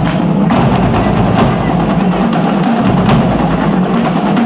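A high school drumline playing together: snare drums and bass drums struck in a fast, steady rhythm.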